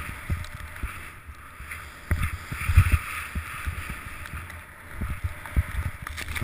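Wind buffeting the microphone of a mounted action camera during a fast run through deep powder snow: irregular low thumps and rumble, heaviest about two to three seconds in, over a steady hiss of snow.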